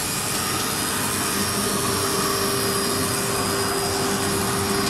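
Bamboo skewer sharpening machine running steadily: motor, drive and cutter heads whirring with one constant hum, together with the rush of the dust collector's fan drawing through the hose.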